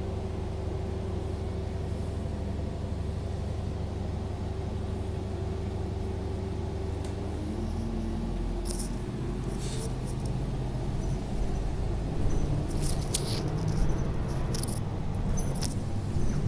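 Cabin sound of a moving SEPTA transit vehicle: a steady running drone and hum whose pitch shifts about eight seconds in. Short high squeaks and clicks come in over the second half.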